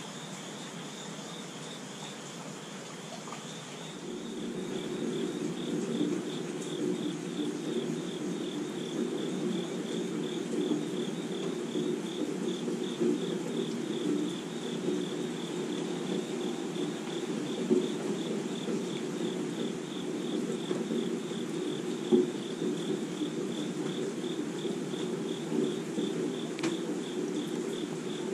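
Rain falling, under a steady, evenly pulsing high trill of chirping insects. About four seconds in, a louder, lower rushing of rain comes in and stays, with a few brief taps.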